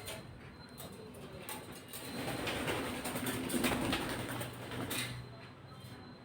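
Pet parrot making low, soft vocal sounds that swell over the middle few seconds, with a few small clicks.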